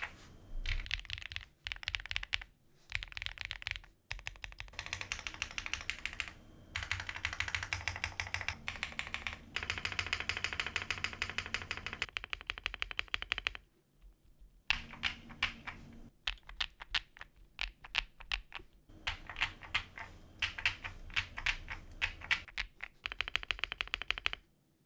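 Typing on a Weikav D75 mechanical keyboard with MMD Princess switches: fast runs of key clacks in bursts of a few seconds, with short breaks and a longer pause of about two seconds midway. The typing stops just before the end.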